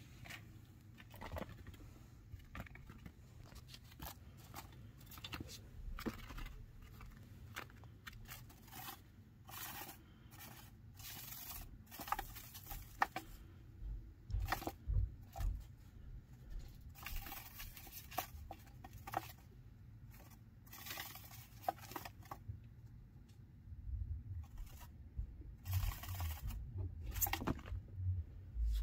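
Small scratchy scrapes and rustles that come and go, with a few soft low thumps around the middle and near the end, as a baby chinchilla moves about among wooden chew toys and a metal tray.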